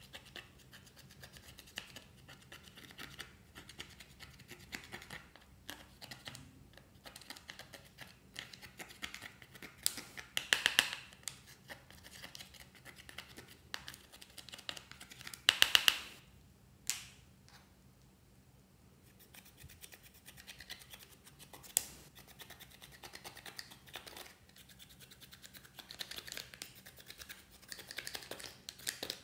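A plastic spatula scraping and chipping pressed eyeshadow out of a palette's pans, a run of small scratches, clicks and crumbles. There are louder scrapes about ten and sixteen seconds in.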